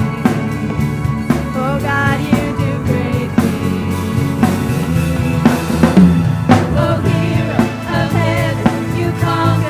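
Worship band playing with drum kit, and a singer's voice over the music.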